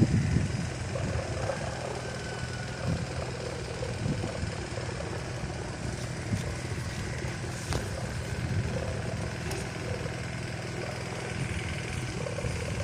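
Kite hummer (sendaren) on a large kite droning steadily in strong wind, mixed with wind rushing over the microphone.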